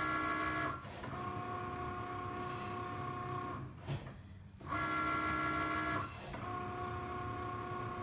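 Cricut Maker cutting machine running through a cut on faux leather, its motors giving out steady pitched tones in stretches of one to two and a half seconds with short pauses between, as the carriage moves and stops.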